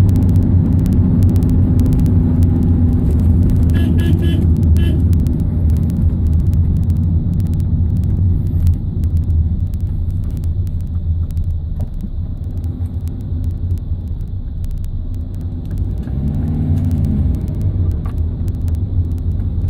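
Van engine and road noise heard from inside the cabin: a steady low drone while driving.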